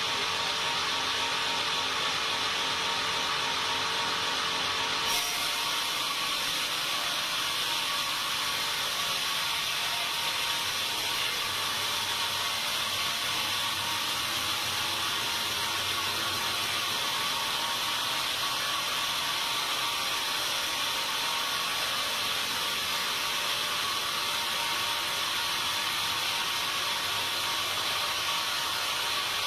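Sawmill saw running steadily through timber, a continuous noisy whir with a faint steady tone in it, turning brighter about five seconds in.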